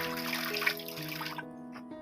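Gentle instrumental background music, held notes moving in a slow melody.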